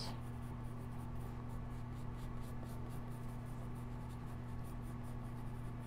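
Pencil scratching on sketchbook paper in faint, quick strokes, sketching feather lines, over a steady low electrical hum.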